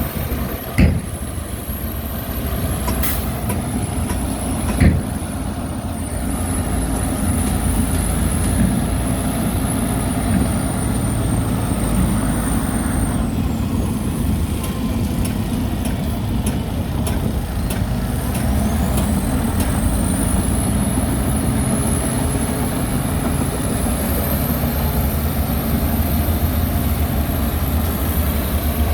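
Heavy diesel construction machinery running steadily under load, with two sharp clanks about one and five seconds in.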